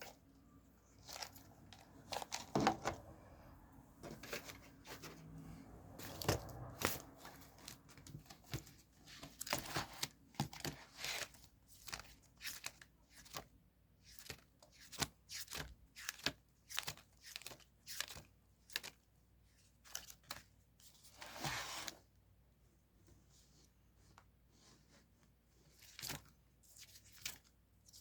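Diary-decorating paper and stickers handled and torn at close range: a steady run of short crinkles, rustles and light taps, with a longer tearing sound a little after 21 seconds.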